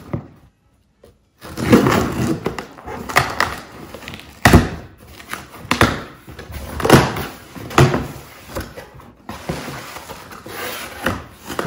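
Cardboard shipping box being opened by hand, starting after about a second and a half of quiet: flaps pulled and handled in a string of rustles and knocks, with one sharp thunk about four and a half seconds in. Near the end a plastic bag crinkles as the wrapped gallon water bottle is lifted out.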